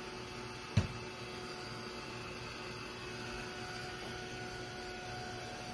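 Small handheld craft heat gun running with a steady whirring hum. A single sharp knock about a second in.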